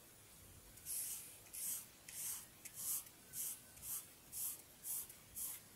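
Marker pen drawing quick strokes on paper laid on a clipboard: about nine short scratchy swishes, roughly two a second.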